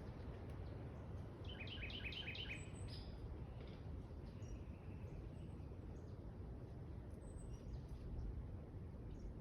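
A bird gives a quick run of about six short, high, falling chirps about two seconds in, over a steady low background rumble.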